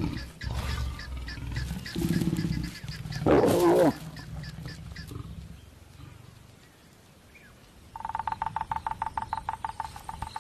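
Lions growling low, then a loud snarl about three and a half seconds in, as a mating pair of lions makes during copulation. From about eight seconds in, a cricket chirps in rapid even pulses.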